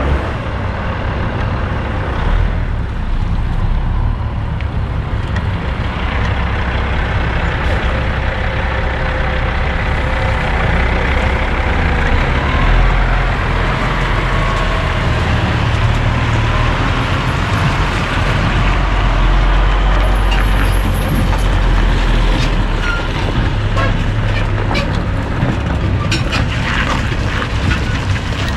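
Loaded Kenworth dump truck and pup trailer pulling away, its diesel engine running under load. The engine is loudest around the middle as the truck passes close, then eases off.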